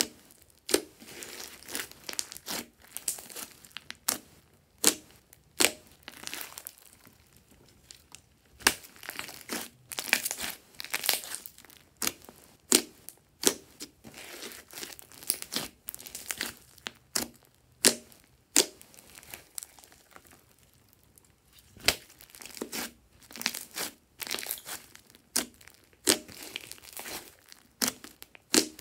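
Hands pressing and squeezing a large mass of glossy slime, giving irregular sharp pops and clicks, some loud, with softer squelches between.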